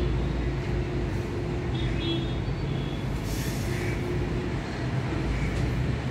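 Steady low background rumble with a few short, faint high-pitched squeaks over it.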